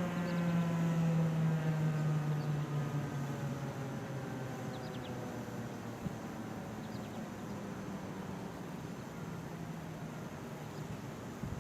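Federal Signal 2001-SRN rotating electromechanical siren winding down at the end of its steady alert tone, heard from a distance. The tone slides downward in pitch and fades over the first few seconds, leaving a faint low hum.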